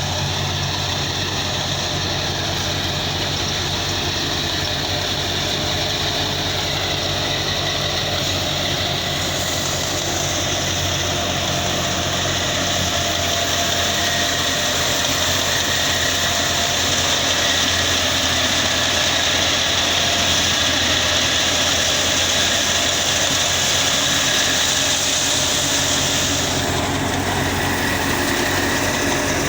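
Wheat thresher running steadily with a low hum. A high hissing rush rises over it about a third of the way in and drops back near the end.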